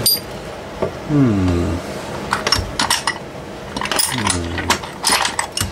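Small metal pieces clinking against each other with short bright rings, in two quick flurries. Twice between them comes a falling, voice-like pitched sound.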